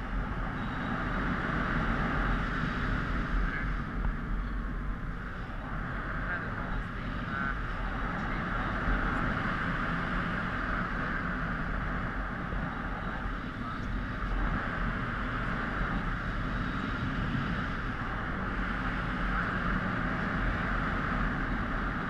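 Steady rush of airflow over a helmet-mounted GoPro in paraglider flight: a low rumble under an even hiss.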